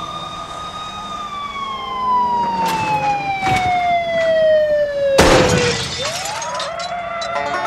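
Police car siren wailing: one long falling wail that starts rising again about six seconds in. Sharp cracks of gunshots cut across it, two lighter ones and a loud one about five seconds in, with glass shattering.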